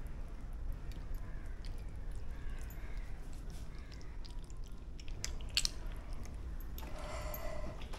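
Fingers squeezing and stuffing chopped green chilli into a raw squid tube, making soft wet squishes and small clicks over a steady low hum. A short animal call, about two thirds of a second long, comes near the end.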